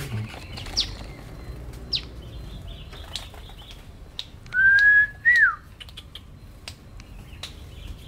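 Small songbirds chirping in an aviary: a few brief high chirps, then a loud whistle about halfway through, a held note followed by a short note that rises and then drops.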